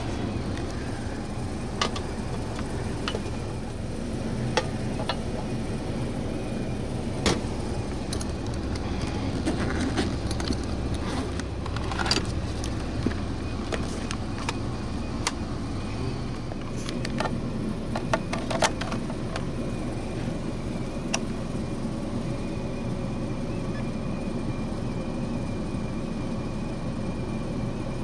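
Steady low hum of an attic air handler's blower running, with scattered clicks and rattles of hand tools being handled in a tool bag.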